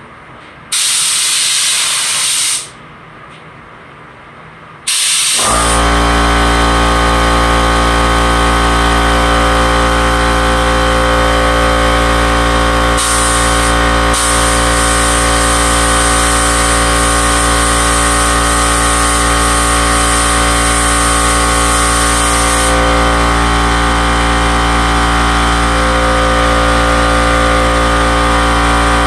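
Spray gun hissing as it lays a tack coat of single-stage gloss black: one short burst about a second in, then from about five seconds in near-continuous spraying with a couple of brief pauses. From the same moment a steady, even hum of an air compressor running sits under the hiss.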